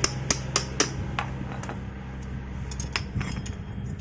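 Metal tools and scooter drive parts clinking as they are handled: four quick sharp metallic clicks in the first second, then scattered lighter clicks, over a steady low hum.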